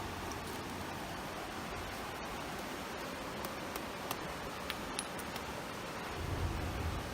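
Steady rushing noise of a creek, with scattered faint crackles of a small campfire and a low rumble swelling near the end.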